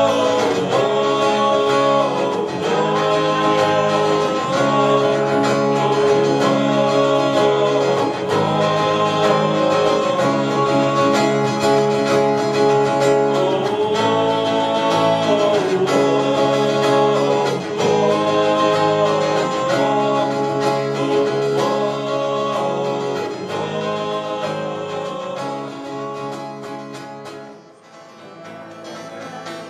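Live acoustic guitars strummed with a male voice singing over them. The music dips sharply near the end, then picks up again.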